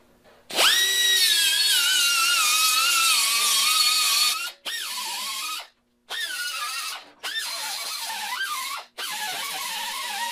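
Small hand grinder spinning at high speed on sheet metal, cleaning up spots to be welded. It gives a high whine, first in one long run of about four seconds whose pitch slowly sags, then in four shorter bursts with brief gaps.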